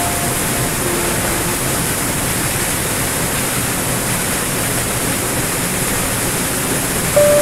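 Small waterfall splashing onto rocks and into a churning pool: a steady, loud rush of water. A few soft piano notes sound near the start and again near the end.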